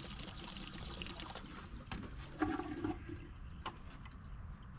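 Water pouring from a plastic jug into a car engine's oil filler, filling the crankcase with water in place of oil. There is a short louder splash about halfway through and a few light clicks.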